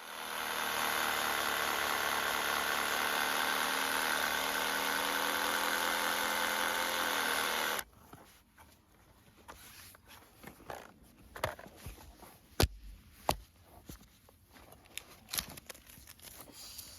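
A small motor-driven tool runs at a steady pitch for about eight seconds, then cuts off suddenly. Scattered light knocks and clicks follow.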